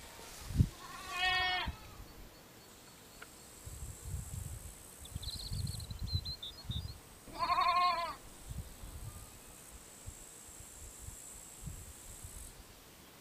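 Sheep bleating, two wavering calls about six seconds apart, with a bird chirping between them over a steady high hiss of crickets.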